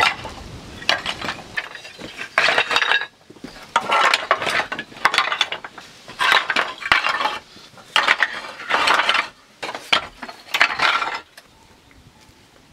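Stone being worked by hand: a run of about eight short scraping, clinking strokes, each under a second and roughly a second apart. They stop about 11 seconds in.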